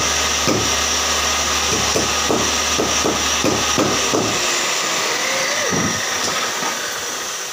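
Woodshop machinery running with a steady hum and hiss, with repeated knocks about three a second. The low hum cuts out about four seconds in.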